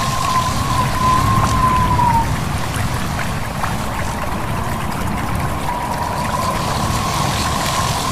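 Babbling stream water mixed with rushing wind, with a thin high whistle of wind that fades out about two seconds in and comes back about six seconds in.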